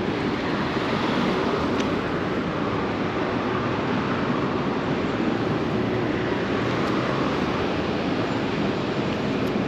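A steady, even rush of wind across the microphone, mixed with road traffic on a wide city street.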